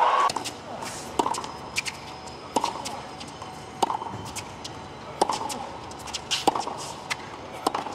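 A tennis ball bounced over and over on a hard court before a serve. Each bounce is a sharp knock, coming roughly once a second, against a hushed stadium crowd. Loud crowd noise cuts off right at the start.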